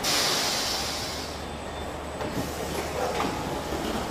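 Car assembly-line machinery noise: a sudden hiss that fades over about a second and a half, over a steady low hum, with a few clanks in the second half.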